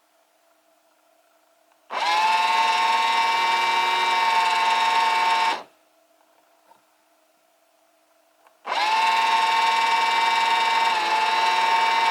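Old cordless drill's electric motor running with a steady whine for about four seconds, then stopping abruptly, cut off by a rev counter controller at a set number of revolutions. A few seconds later it starts again, runs for a similar stretch and stops just as abruptly.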